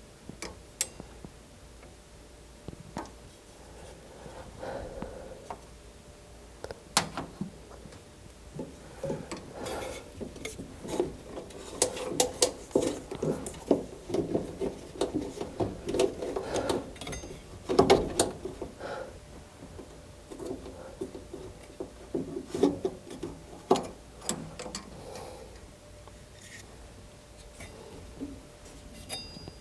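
Furnace parts handled by hand during disassembly: irregular clicks and knocks with stretches of rubbing and scraping. It is busiest in the middle, with the loudest knock about eighteen seconds in.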